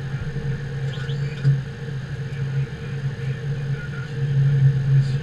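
Steady low hum on the flight deck of a Boeing 777-200 standing at the gate, with a few faint ticks.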